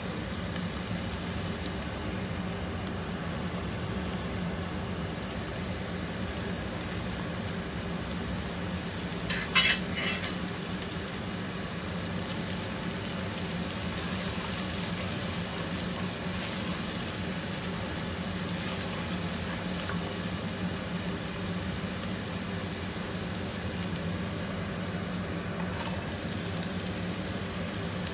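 Chopped onions sizzling as they fry in oil in a pot, stirred with a spatula, with a sharp clink about nine seconds in.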